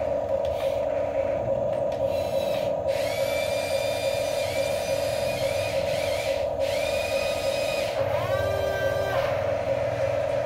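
Small electric motors of a radio-controlled wheel loader whining in several separate runs as the bucket is raised. Each whine rises in pitch, then holds steady before cutting off. A steady hum runs underneath.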